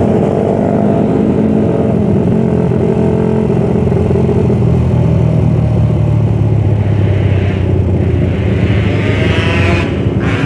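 Suzuki Satria F150 motorcycle's single-cylinder engine running under way, with other motorcycles around it. The engine note eases off through the first half, then revs climb again in the last few seconds.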